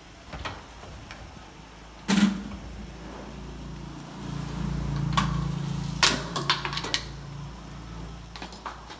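Kitchen handling sounds: a single loud knock about two seconds in, then a quick run of plastic clicks and clatter near six to seven seconds as a plastic seasoning jar is opened and spooned from. A low steady hum sits under them from the knock until near the end.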